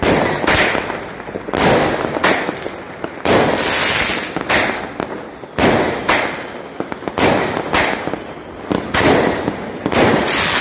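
Consumer fireworks cake firing its shots in a steady barrage, a sharp bang about once a second, each followed by a fading hiss as the shell breaks overhead.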